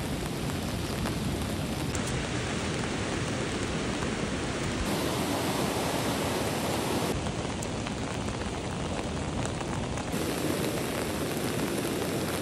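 Heavy rain pouring down over a flooded park stream rushing bank-full, a steady hiss of rain and running water that shifts slightly in tone a few times.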